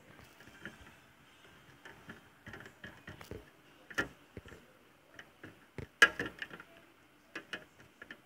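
Small plastic clicks and taps as a Littlest Pet Shop figurine is handled and knocked against a clear plastic tub, irregular and uneven, with the loudest knocks about six seconds in.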